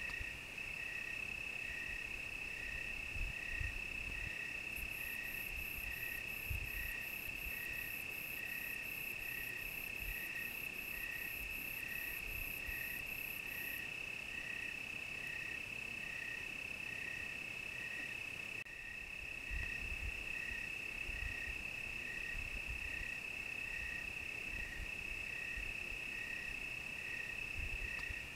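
Crickets chirping: one steady high trill under a second chirp that pulses about one and a half times a second. A higher, faster chirping joins from about five seconds in until about halfway through, with occasional low thumps.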